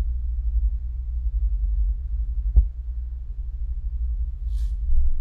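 Steady low background hum in a pause between speech, with a single soft click about halfway through.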